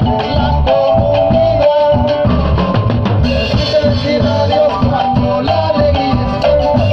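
Live band music: a drum kit keeping a steady Latin dance beat under guitar and a man singing into a microphone.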